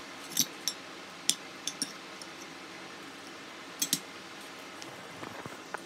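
Metal fork clinking against a dinner plate while eating: several short, scattered clinks, two of them close together about two-thirds of the way through.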